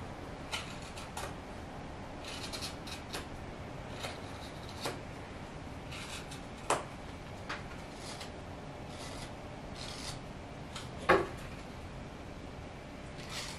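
Carving knife paring a dry birch block: short scraping cuts at uneven intervals, with one louder knock about eleven seconds in.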